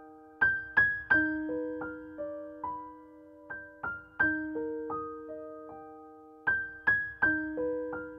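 Background music: a gentle piano melody of single struck notes that ring and fade, the same short phrase repeating about every six seconds.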